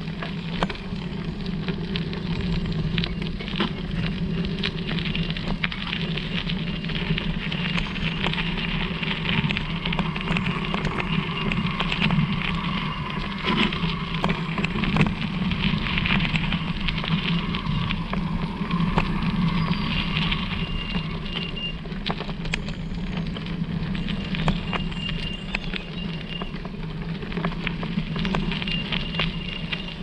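E-bike towing a bicycle caravan trailer rolling downhill on a forest track: a steady low rumble of tyres and running gear with many small crackles and rattles, and a thin high squeal in a few short stretches near the end.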